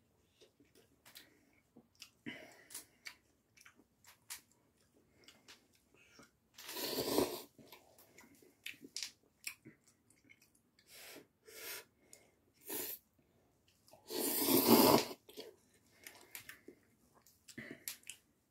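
A person eating cup noodles, slurping hot udon noodles loudly twice for about a second each, with wet chewing and small mouth clicks in between.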